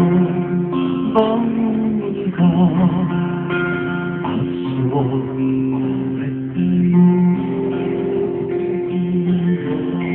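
Acoustic guitar played live through a stage sound system: a melody of long held, ringing notes, a few of them wavering in pitch.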